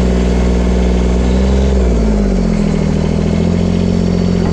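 A John Deere 332 garden tractor's Yanmar 3TN66UJ three-cylinder diesel engine running steadily while the tractor drives. The engine note shifts slightly about two seconds in.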